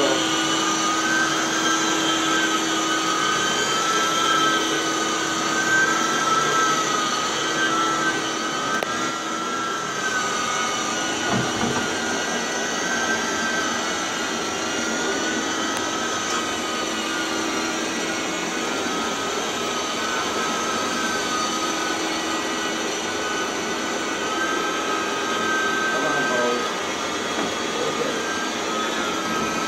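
Rotovac DHX carpet extractor running with its rotary cleaning head worked across the carpet: a steady, high vacuum-motor whine whose pitch wavers slightly, over a lower steady hum.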